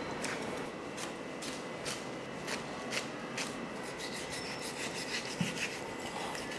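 Kitchen knife slicing and scraping along a beef shank bone, cutting the meat away in a series of short, irregular strokes.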